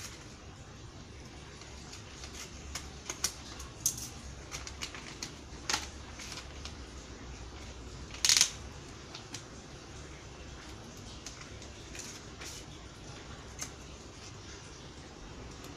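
Gift-wrapping paper crinkling and tearing as a wrapped book is unwrapped by hand, with scattered rustles and clicks and one louder rip about eight seconds in.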